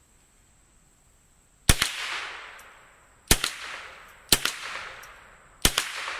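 Four rifle shots at uneven spacing, each a sharp crack followed by about a second of echo under the range's roof.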